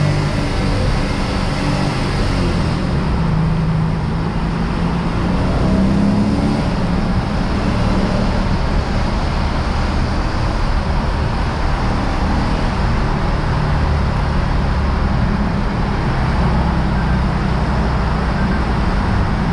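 Lexus RC F's 5.0-litre V8 running at a steady cruise under road and tyre noise, with the engine note rising and falling slightly a few seconds in.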